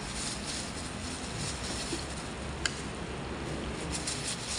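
A person eating by hand: faint chewing with light crackles and one sharp click about two and a half seconds in, over a steady low background rumble.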